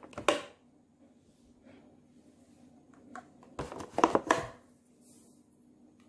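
Plastic bags and a plastic food box being handled: a sharp knock just after the start and a short cluster of clicks and rustles about four seconds in. Between them it is near quiet, with a faint low hum.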